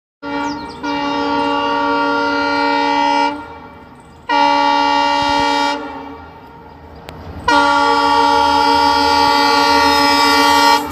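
Locomotive air horn sounding three blasts: a long one, a short one, then another long one. Each is a steady chord, and a low rumble runs underneath.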